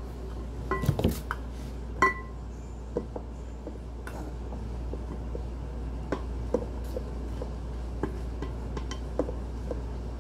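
Utensils knocking and clinking against a large glass mixing bowl while dry ingredients are tipped in from a measuring cup. Two sharp knocks about one and two seconds in make the glass ring briefly, followed by lighter scattered taps.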